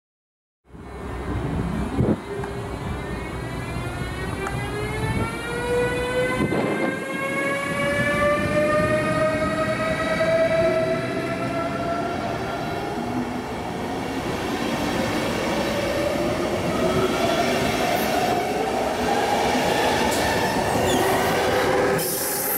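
Class 193 Vectron electric locomotive's traction drive whining, a stack of tones rising steadily in pitch as the train accelerates, over the rolling noise of passenger coaches on the rails. A sharp knock about two seconds in.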